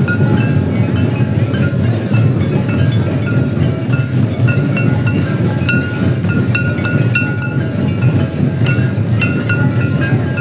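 Santali folk dance music: drums beating steadily, with short high notes repeating over them in a quick pattern.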